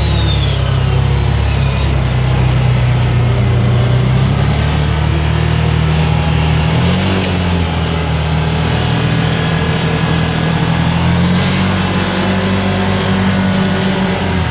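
2012 Can-Am Commander 800 side-by-side's V-twin engine running steadily under way, its pitch rising slightly about halfway through.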